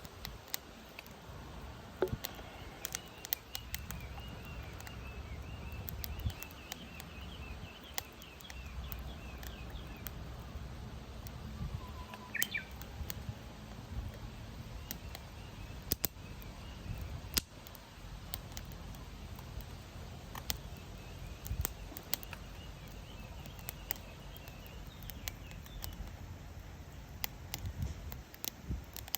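Wood fire crackling and popping steadily over a low rumble, a log burning hard with a chimney-effect draft. Birds chirp now and then in the background.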